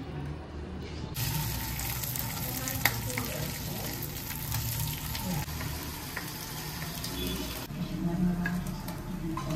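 Slices of meat frying in a non-stick pan: a steady sizzle starts about a second in and stops abruptly near the end. A spatula scrapes and taps against the pan now and then.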